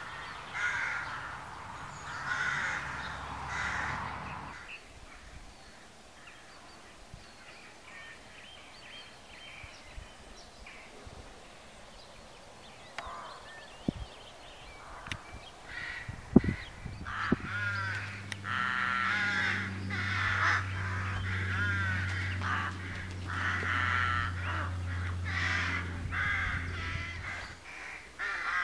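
Crows cawing: a burst of calls, then a few quieter seconds, then a dense chorus of many birds calling over one another. A steady low drone runs under the later calling, and there are two sharp knocks shortly before it starts.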